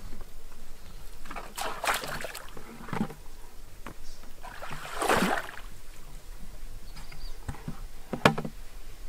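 Shallow muddy water sloshing and splashing as a person wades through it in a few separate surges, with one sharp knock near the end.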